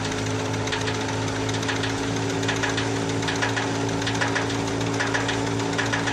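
Wheat threshing machine running steadily: a constant engine hum with quick clusters of rattling clicks over it.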